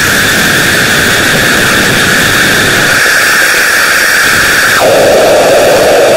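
Loud, steady static-like hiss with one brighter, narrower band of hiss in it. That band drops to a lower pitch near the end.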